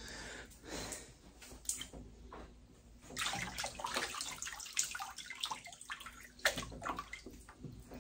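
Water splashing and sloshing in a cooler as a hand reaches in and lifts out a live bowfin, a few light splashes at first, then steadier sloshing for several seconds from about three seconds in.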